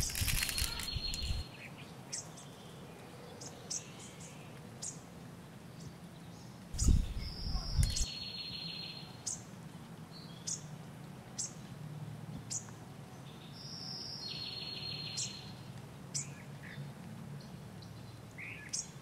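Birds chirping: short high chirps about once a second, with two longer buzzy trills about 8 and 14 seconds in. A brief low thump sounds about 7 seconds in.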